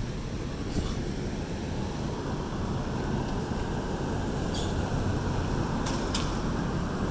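Steady low rumble of city street traffic, with a few brief faint clicks.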